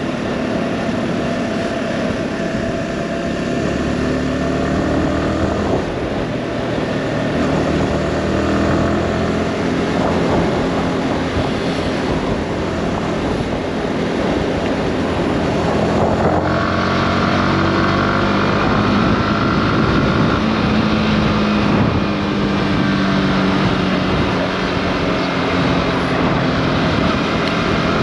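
Sport motorcycle engine running at a steady cruise, with wind and road noise. The engine note changes about 16 seconds in.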